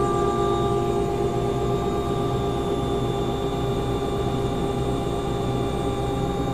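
Helicopter running steadily: a constant engine drone with a steady high whine.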